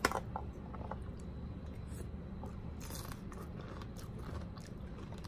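Close-miked ASMR chewing of a mouthful of pomegranate seeds: irregular small crunches and wet mouth clicks, with one sharper click at the start.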